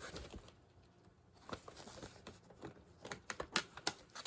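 Hands rummaging in a canvas tote bag and handling baseball cards in plastic holders: soft rustling with scattered sharp clicks and taps, coming thickest and loudest about three and a half seconds in.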